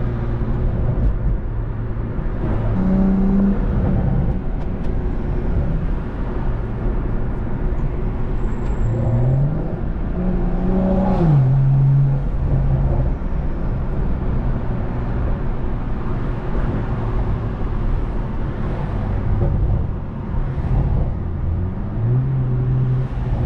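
BMW M340i's turbocharged 3.0-litre inline-six running and pulling through the gears, heard from inside the cabin over steady road noise. The engine note rises about ten seconds in and drops sharply at an upshift, with smaller steps in pitch near the start and near the end.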